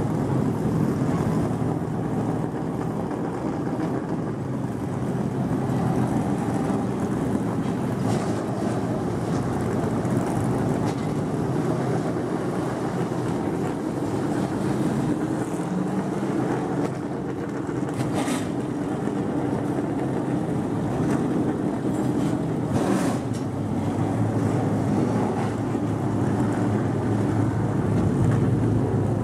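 Steady low rumble of vehicle engines running in the background, with two brief sharp noises about 18 and 23 seconds in.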